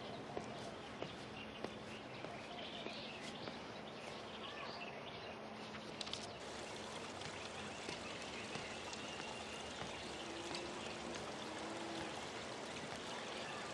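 Steady hiss of running water, with a few faint bird chirps over it in the first half.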